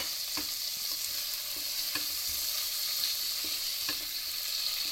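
Marinated chicken sizzling in an open pan as it is fried uncovered to cook the gravy down, with a spoon knocking and scraping against the pan a few times as it is stirred.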